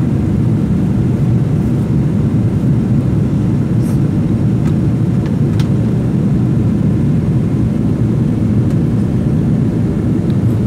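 Steady roar of a jet airliner's engines and airflow heard from a window seat inside the cabin, a constant low rush that does not change.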